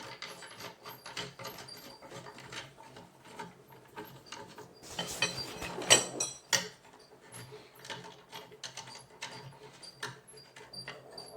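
Small squeaks from a work table that needs oiling, under light clicks and knocks of a metal rod and wooden table panels being handled. A louder clatter comes about five seconds in, with one sharp knock about six seconds in.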